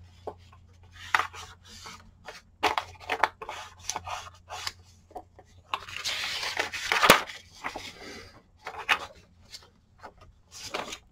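An ink blending tool rubbed in short, scratchy strokes over the edge of a sheet of paper to ink and distress it, with the paper rustling as it is handled and turned. A longer stretch of brushing comes about six seconds in and ends in a sharp tap.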